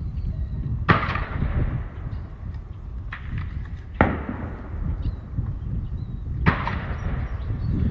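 Shotgun shots at a clay range: three sharp reports with a short echoing tail, about a second in, at four seconds and near six and a half seconds, with a fainter crack between the first two. A steady low rumble of wind on the microphone runs underneath.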